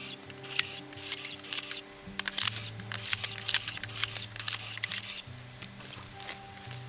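Background music with steady low notes, over a run of irregular sharp crackles and snaps.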